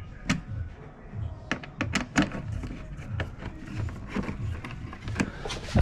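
Irregular sharp clicks and taps of metal hardware and tools being handled while the snorkel's mounting studs are fitted.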